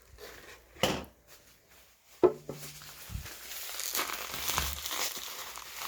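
Packing material in a cardboard box crinkling and rustling as sodas are pulled out, with a few sharp knocks in the first half. The rustling grows steadier over the last couple of seconds.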